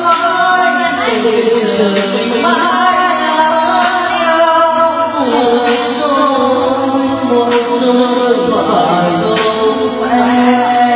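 A man singing a slow Vietnamese ballad into a karaoke microphone over a backing track, holding long, bending notes.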